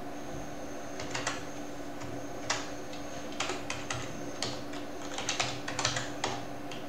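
Computer keyboard typing: about twenty key clicks in short, irregular runs as terminal commands are entered.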